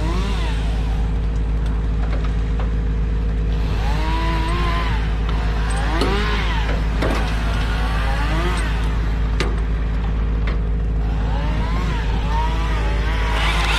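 A large engine running steadily with a low, constant drone. Several short rising-and-falling tones sound over it every few seconds.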